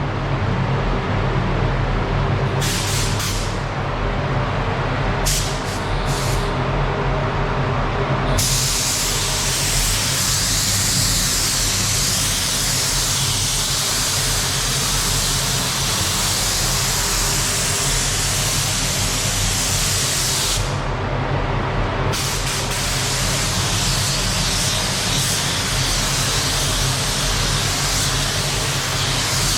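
Spray booth extraction fan running with a steady hum while a compressed-air paint spray gun hisses: two short bursts in the first few seconds, then a long continuous spray from about eight seconds in, a brief pause a little after twenty seconds, then spraying again.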